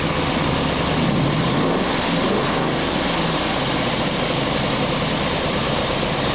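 1969 Camaro Z/28's 302 V8 engine running steadily as the car is driven, with a brief rise and fall in pitch about a second in.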